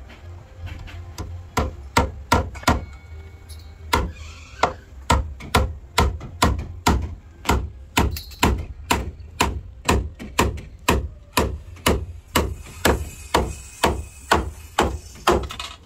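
Hammer blows on wood, a steady run of sharp strikes about two a second with a brief pause early on, as a new wooden plank is driven and fastened onto a fishing boat's hull.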